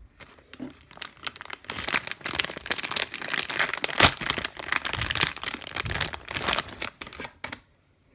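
Clear plastic packaging bag crinkling and crackling as it is handled and opened and a squishy toy is taken out of it, with the loudest crackle about halfway through. The crinkling stops abruptly shortly before the end.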